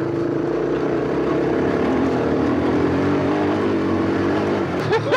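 Polaris Outlaw quad's engine running steadily under way on a dirt track, its pitch sagging a little about two seconds in and picking up again.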